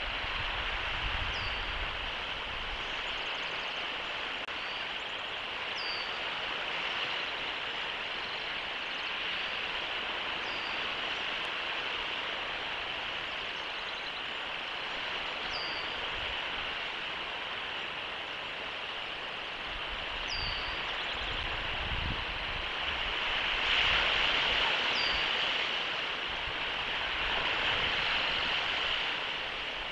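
Steady rushing outdoor noise, like wind or distant surf, that swells a little twice near the end. Over it a bird gives a short, high, falling chirp about every five seconds.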